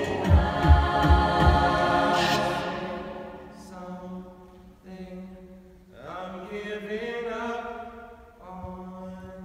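A cappella vocal group singing held chords, loud at first with a few low thumps, then dropping to soft sustained notes that swell once more and fade.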